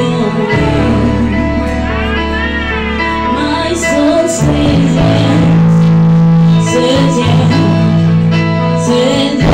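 Live gospel worship song: a woman sings lead through a microphone over a band's steady bass notes and guitar, wavering on a long held note about two seconds in.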